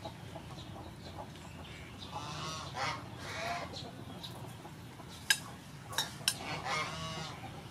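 Poultry calling a few times in the background, each call about half a second long, with three sharp snips of kitchen scissors cutting shrimp near the end.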